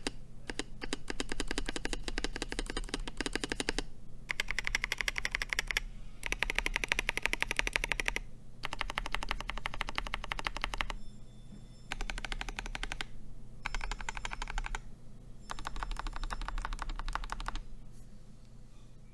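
Mechanical keyboard typing on modded Boba U4T tactile switches in a KBD67 Lite board: fast runs of keystrokes in seven bursts of one to three seconds each, with short pauses between them.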